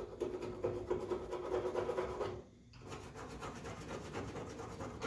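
A hand rubbing and scraping over the painted firewall of a Chevy Impala, with loose, poorly adhered paint flaking off the metal. The rubbing breaks off briefly about halfway, then goes on. A steady low hum sits under the first half.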